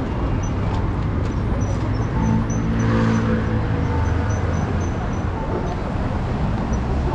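City street traffic rumbling steadily. A road vehicle passes close about three seconds in, its engine sound swelling and then fading.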